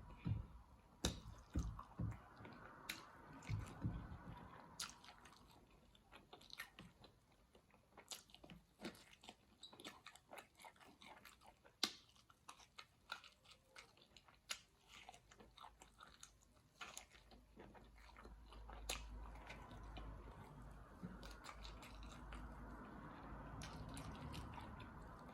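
A person chewing and biting food, with many short sharp clicks and crunches spread through it.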